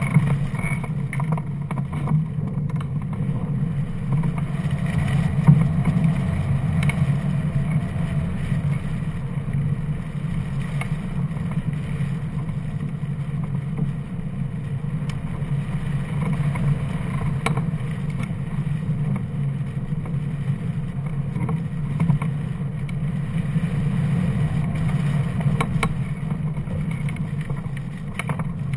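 Wind rushing past a hang glider's mounted camera microphone in flight: a steady low rumble that rises and falls a little.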